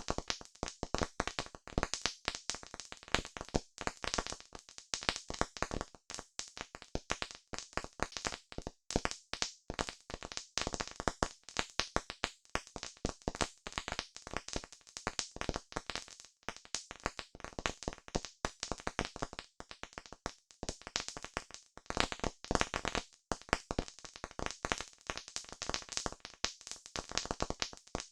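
Campfire crackling: a dense, irregular run of sharp pops and snaps.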